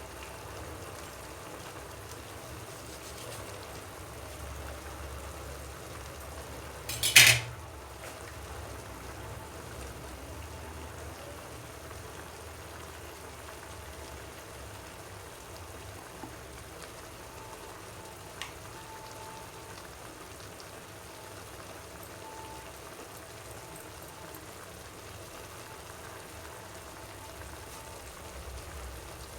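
Pot of noodle soup simmering, a steady hiss, with a single sharp knock about seven seconds in.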